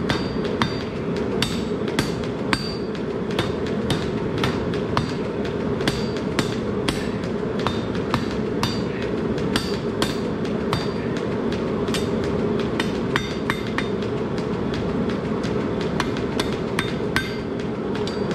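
A hand hammer strikes a red-hot steel bar on an anvil in irregular blows, about two a second. Some blows carry a short, high ring. A steady low rushing noise runs underneath.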